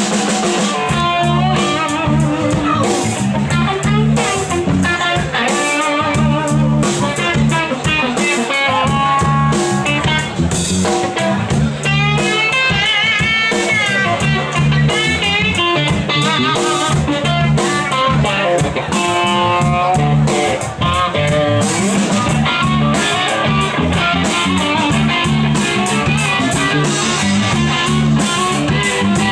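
A live rock band playing loudly: electric guitar over a drum kit.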